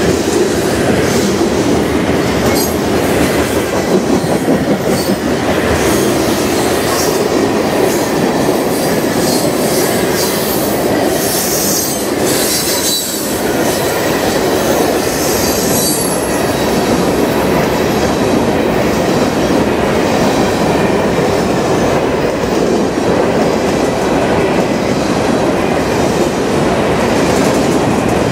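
Loaded freight train of covered hopper and tank cars rolling past close by: a steady, loud rumble of steel wheels on rail with scattered wheel clicks, and brief high-pitched wheel squeals near the middle.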